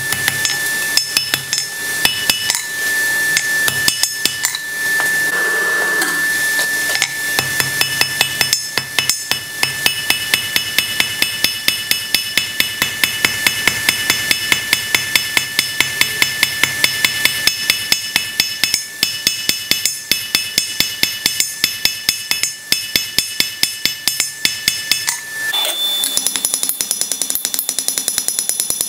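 Blacksmith's hand hammer striking a red-hot square steel bar on an anvil in a quick, steady rhythm, each blow carrying a ringing note. A little before the end the ring changes pitch and the blows come lighter and faster.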